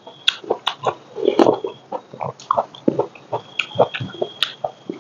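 Close-miked eating sounds: chewing with a full mouth, with wet smacks and clicks coming irregularly several times a second. A thin high whistle comes and goes.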